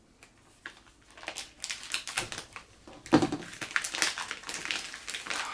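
A shipping package being handled and pulled open by hand: crinkling and rustling with quick sharp clicks and taps, starting about a second in and loudest about three seconds in.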